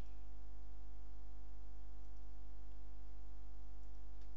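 Steady electrical mains hum, with several higher steady tones stacked above it and a few faint clicks.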